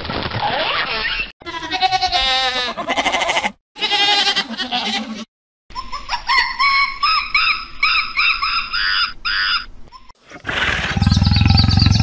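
A succession of different animal calls, cut one after another with brief silent gaps. One stretch is a run of about nine short, evenly spaced calls, and a louder call with a deep low rumble starts near the end.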